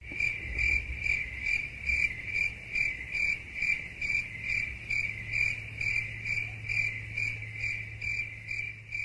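Crickets sound effect: a cricket chirping in a steady rhythm, about two high chirps a second, over a faint low hum.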